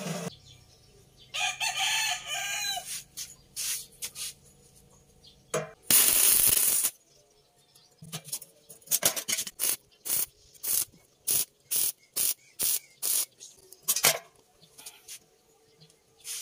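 A rooster crows once, a long wavering call near the start. About six seconds in there is a short loud burst of noise, followed by a run of sharp clicks, roughly two or three a second.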